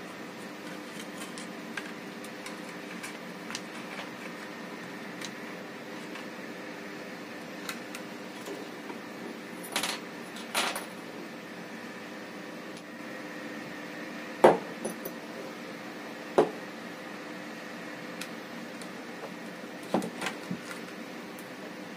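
Small metal parts of a ratchet torque wrench head (ratchet gears and circlips) being handled and set down on a wooden table: scattered clicks and knocks, the loudest three in the second half. There are a couple of brief rustles about ten seconds in, over a steady background hum.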